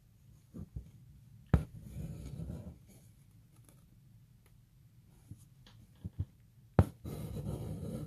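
Embroidery needle tapping sharply as it pierces fabric held taut in a hoop, then the embroidery floss being drawn through with a scratchy rasp lasting about a second. This happens twice, with a few soft taps in between.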